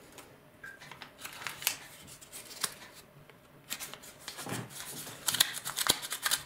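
Close-up handling of a small packet of helenium seeds: light rustling with a scattering of sharp clicks and taps, which come faster and louder in the second half.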